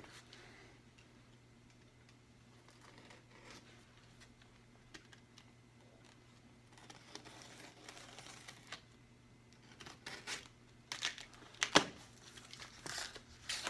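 Cardboard shipping carton being opened by hand: faint scraping and rustling at first, then a run of crinkles, taps and light knocks in the second half, the loudest a sharp knock near the end.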